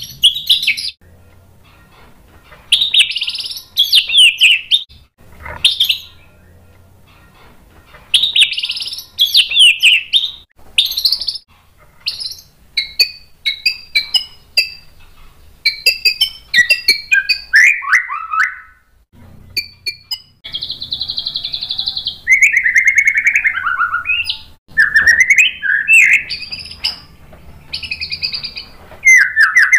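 White-rumped shama singing loud, varied phrases a second or two long with short pauses between them. Partway through comes a run of rapid short notes with falling glides, followed by a harsh buzzy note.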